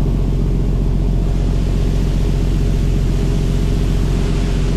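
Fishing boat's engine running steadily with a low hum, under the steady hiss of the boat's water sprayers jetting onto the sea surface to draw skipjack tuna to the poles.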